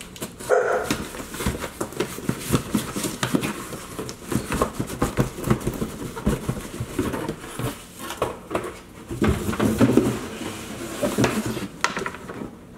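Cardboard shipping box being unpacked by hand: flaps rustling and a boxed toaster scraping and knocking against the cardboard as it is pulled out, in irregular rustles and knocks.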